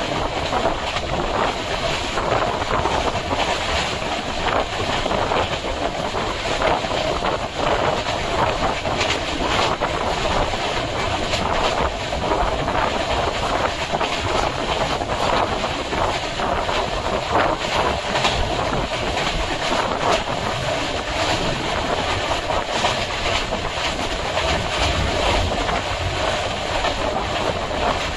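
Passenger train coach running along the track, heard from on board: a steady rumble of wheels on rails with frequent clicks and clatter from the rail joints.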